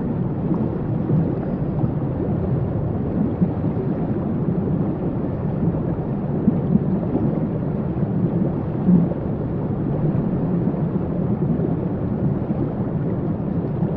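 Waterfall: water falling and churning in a steady, deep rumbling rush.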